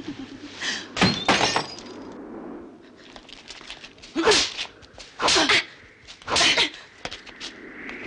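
A drinking glass smashes about a second in. It is followed by a scuffle with three loud, short cries about a second apart, each falling in pitch.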